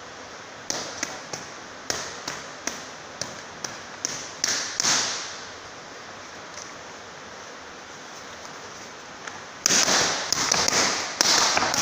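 Boxing gloves smacking leather focus mitts in pad work. About ten sharp punches land in the first five seconds, then comes a pause, then a fast, dense flurry of strikes near the end.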